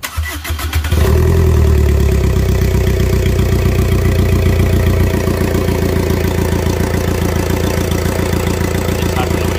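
Chevrolet Enjoy's 1.3-litre four-cylinder diesel engine cranked by the starter for about a second, catching and running, then settling to a steady idle about five seconds in. It is the first start after the engine has been refitted and its timing set.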